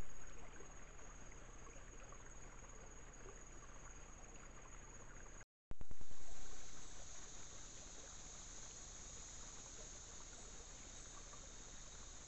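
Trail-camera audio of a small rocky creek: a steady hiss of trickling water with a high, steady insect drone, which is stronger after a cut about five and a half seconds in. Each recording opens with a louder rush that dies down within about a second.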